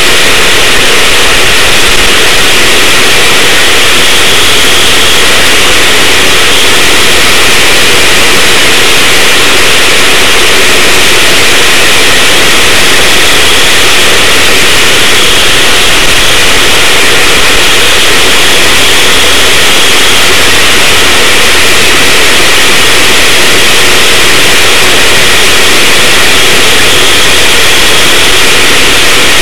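Racing go-kart engine running flat out, picked up by an onboard camera microphone that is overloaded into a constant, very loud, distorted noise mixed with wind rush.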